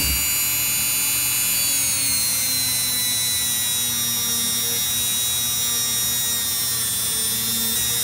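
Handheld electric rotary tool running at high speed with a polishing bit worked inside a port of an aluminium 80cc two-stroke cylinder, buffing it with polishing compound. A steady high whine whose pitch dips slightly over the middle seconds and comes back up near the end.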